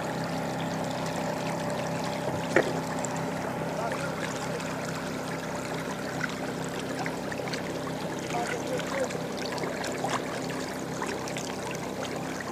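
Water lapping against a small fishing boat over a steady low hum, with scattered small clicks and a sharper knock about two and a half seconds in.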